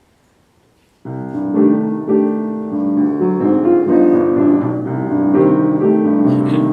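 Piano introduction to a song: after a quiet first second, chords start suddenly and move along in a steady progression.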